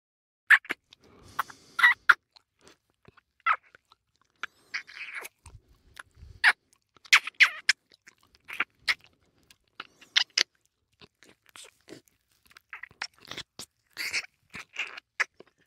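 Kissing sound effect: a long run of irregular, wet lip smacks.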